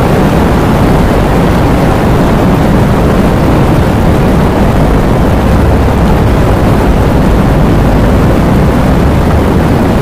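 Heavy rain falling in strong wind: a loud, steady, dense rush of noise with a deep low rumble.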